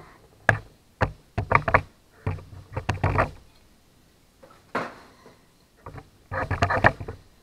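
A series of short, irregular knocks and clatter, with the busiest stretches about a second and a half to three seconds in and again near the end: tools and metal parts being handled on a workbench.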